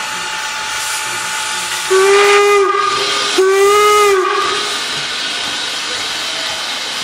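Norfolk & Western No. 475, a 4-8-0 steam locomotive, sounds two short blasts on its steam whistle, each sagging slightly in pitch as it cuts off. Two short blasts are the standard railroad signal that the train is about to move off. Steam hisses steadily under and around the blasts.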